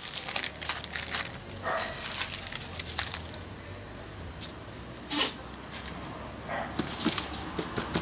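Small hand scoop digging and scraping through loose potting soil in a basin, with rustling and gritty scrapes, and one sharper, louder scrape about five seconds in.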